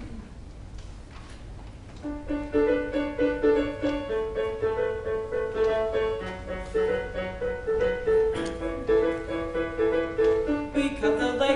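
Piano playing the song's introduction, a run of short repeated notes, starting about two seconds in after a quiet pause.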